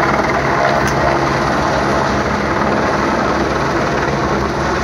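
Helicopter flying overhead at a distance, its rotor and turbine making a steady drone.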